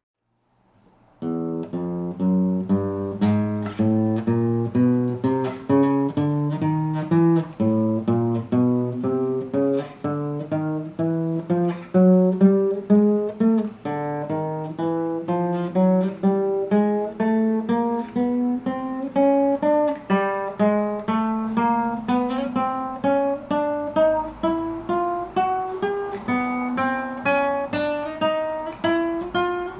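Acoustic guitar played one note at a time, about two notes a second, climbing in semitone steps fret by fret up the neck. It starts about a second in, and the run drops back low and climbs again a few times as it moves on to the next string.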